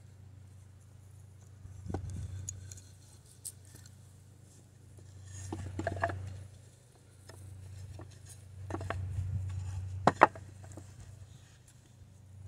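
Cherry wood boards being handled and set back together in a stack, knocking and clacking against each other several times, with the loudest double knock about ten seconds in.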